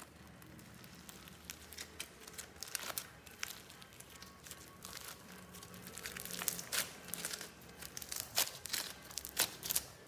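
Clear slime and soft clay squeezed and kneaded by hand, giving a run of wet crinkling, clicking and popping sounds that grow denser and louder in the second half.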